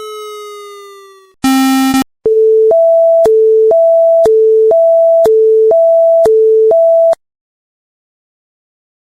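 Synthesized emergency alert tones: a fading, slightly falling tone, then a short harsh buzz, then a two-tone hi-lo alarm alternating between a lower and a higher beep about every half second, cutting off abruptly about seven seconds in.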